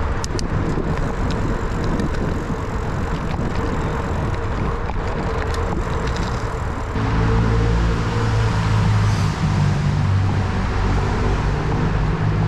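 Riding noise from a bicycle on a paved trail: wind on the microphone and tyre rumble. About halfway through it turns abruptly louder and deeper, into a steady low rumble.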